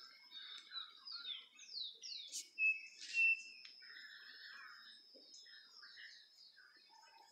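Several wild birds calling together, with quick chirps and short whistles that slide downward, over a steady thin high tone. The loudest sound is a clear two-note whistle, both notes on the same pitch, about three seconds in.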